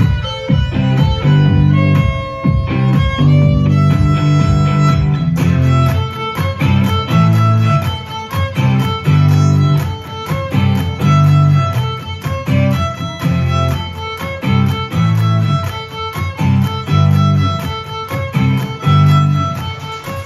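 Violin playing a melody of held notes, with a lower accompaniment of steady bass notes underneath it.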